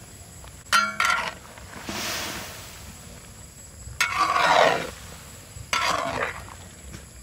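Metal spatula scraping and clanking against a wok as it stirs a simmering pork curry. There are several separate strokes: a sharp ringing clank about a second in, then harsh scrapes, the loudest about four seconds in and another near the end.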